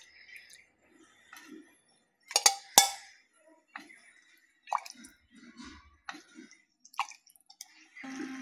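Steel ladle scooping chicken broth from a clay pot and pouring it into a steel bowl: several sharp clinks of the ladle against pot and bowl, the loudest two about half a second apart a couple of seconds in, with soft pouring and dripping of the liquid between.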